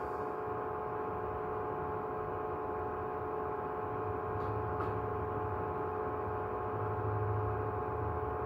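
Steady electrical hum made of several held tones over a low drone, with two faint clicks about halfway through.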